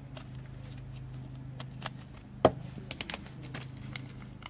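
Light clicks and taps of trading cards being handled, with one sharper knock about halfway through, the loudest sound, over a low steady hum.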